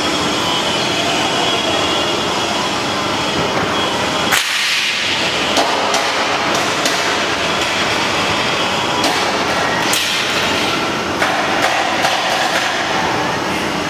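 Steady mechanical running noise of a stainless-steel multi-tier belt cooling conveyor, with scattered sharp clicks and knocks.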